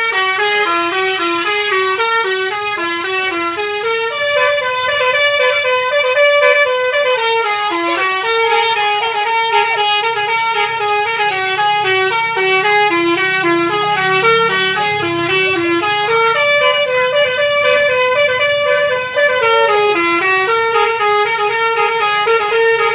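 Bus 'telolet' musical horn playing a fast tune of short stepped notes, one after another without a break.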